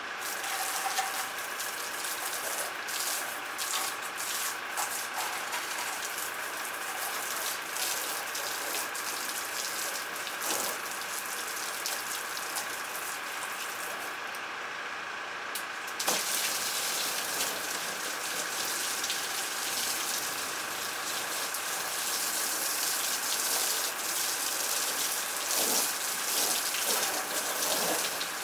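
Water from a pump-fed shower nozzle spraying onto the plastic hull of a small boat and splashing onto wet concrete: a steady hissing splatter, with a faint steady whine underneath. About halfway through, the spray thins for a couple of seconds, then comes back suddenly.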